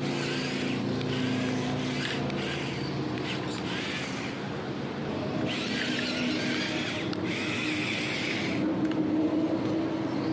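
Small electric motor running steadily, with a higher whine that comes and goes, strongest a little past the middle.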